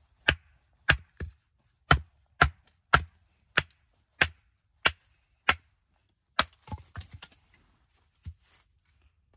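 Work Tuff Gear Puzon Wilderness Bowie 7 being batoned through a log: about ten sharp knocks of the baton on the blade's spine, roughly two a second. About two-thirds of the way in there is a quick run of smaller cracks as the log splits apart, then one last knock.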